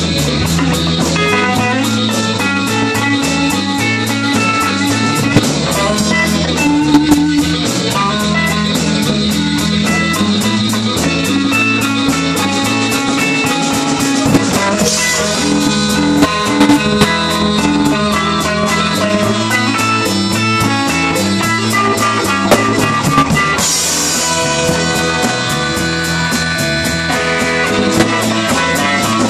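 Live blues-rock band playing an instrumental passage: amplified harmonica and electric guitar over bass and a steady drum-kit beat, with cymbal crashes twice.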